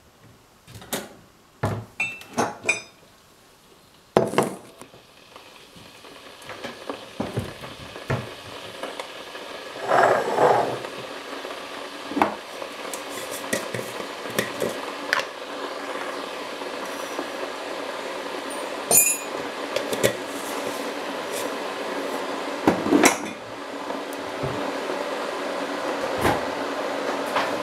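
Crockery and cutlery clinking and knocking as a plate and a mug are set down on a kitchen worktop, with a fuller clatter about ten seconds in. Behind them an electric kettle heats with a steady rushing noise that grows louder.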